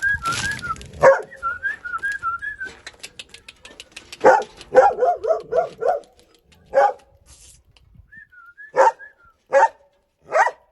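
Caucasian Shepherd puppy whining in a high, wavering tone, then barking. There is a single bark about a second in, a quick run of barks around the middle, and several spaced barks near the end.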